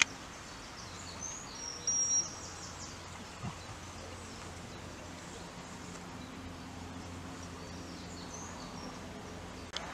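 Open-air field ambience: a steady low background noise, with songbirds giving short high chirps and whistles, the loudest about two seconds in and a few more near the end.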